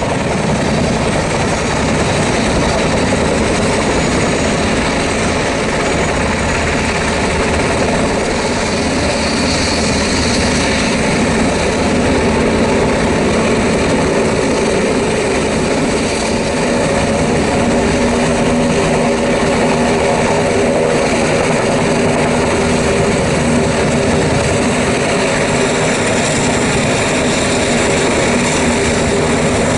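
Military turbine helicopters running close by: steady rotor and engine noise with held whining tones and no break.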